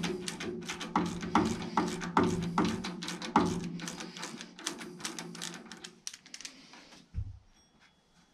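Fast, rhythmic scrubbing strokes, about four or five a second, of a hand-held brush working over the large drive sprocket of a vintage Ransomes Marquis cylinder mower. The strokes stop about six seconds in, and a single dull thump follows about a second later.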